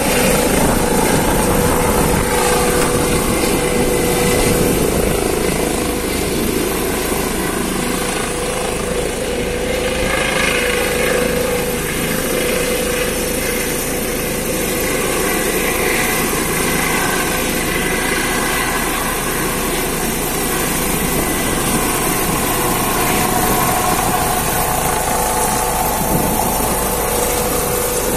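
Eurocopter EC135 air-ambulance helicopter taking off, hovering low and then climbing: steady rotor and turbine noise with a steady hum and a high turbine whine, loud throughout.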